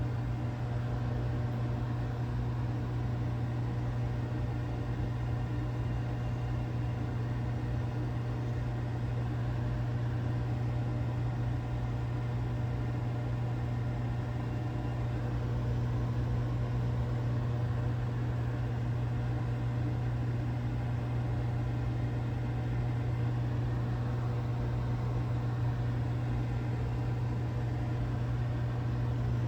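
Microwave oven running steadily while heating food, a constant low hum.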